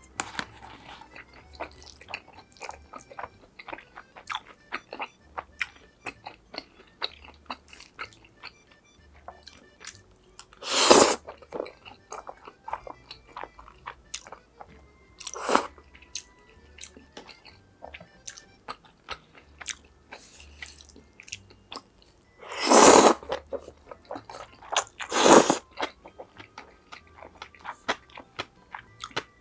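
Close-miked eating: steady chewing with many small wet mouth clicks, broken by four louder crunchy bites, at about 11, 15, 23 and 25 seconds in.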